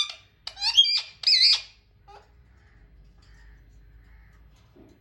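A parrot squawking: three short, harsh calls that bend in pitch, one after another in the first second and a half.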